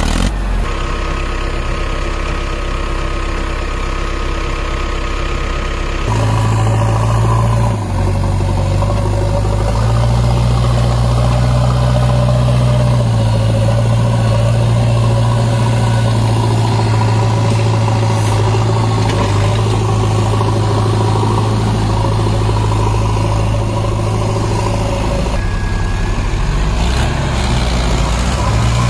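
Heavy diesel engine running. Its revs and loudness step up about six seconds in and hold, with a brief dip near eight seconds, then drop about 25 seconds in and pick up again near the end.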